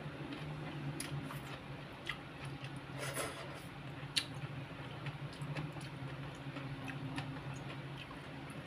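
A person chewing a mouthful of pecel, boiled sweet potato leaves, with soft wet mouth clicks and one sharper click about four seconds in, over a steady low hum.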